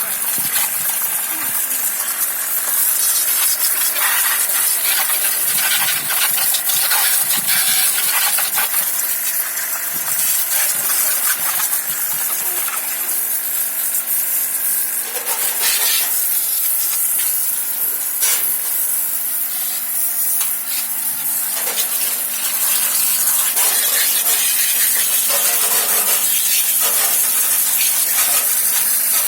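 A steady hissing spray with a few scattered knocks and scrapes, from parts being spray-cleaned.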